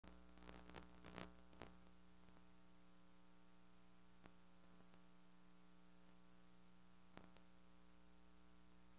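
Near silence: faint steady electrical hum and hiss from VHS tape playback on a blank lead-in, with a few faint clicks in the first second and a half and two more later.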